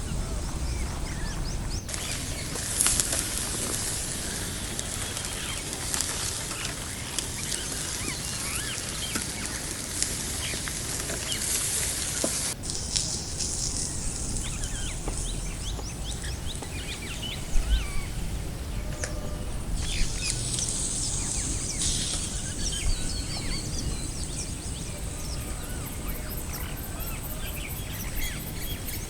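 Outdoor park ambience of many small birds chirping throughout, over a constant low rumble. A steady high hiss switches on suddenly about two seconds in and off again about twelve seconds in.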